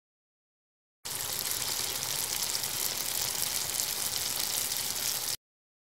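Potato chips sizzling in a deep fryer: a steady hiss that starts abruptly about a second in and cuts off suddenly near the end.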